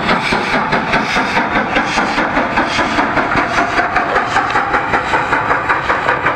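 Steam locomotive working under steam, its exhaust chuffing in a steady, even rhythm of about four beats a second.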